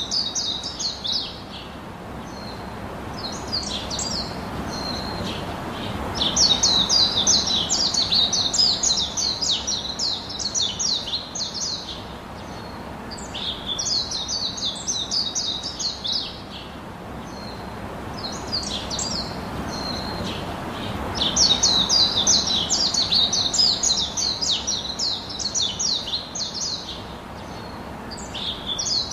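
Songbirds chirping in fast, dense runs of high notes. Phrases last from one to six seconds, with short gaps between, over a steady low hiss. The same pattern of phrases recurs about every fifteen seconds, as a looped birdsong recording does.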